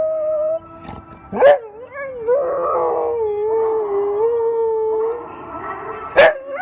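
A Labrador-mix dog howling in long, wavering notes. The howl breaks off with a sharp, loud cry about a second and a half in, starts again a little lower, and there is another sharp cry near the end.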